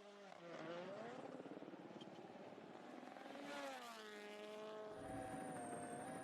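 Rally car engines accelerating, their pitch climbing and then dropping as cars go by, twice. From about five seconds in a steady engine note holds.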